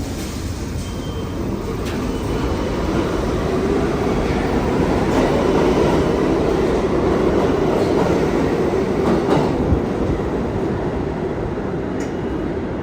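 New York City subway train moving through a station: a steady rumble of wheels on the rails that swells to a peak about halfway through and then eases off, with a few clicks over the rail joints.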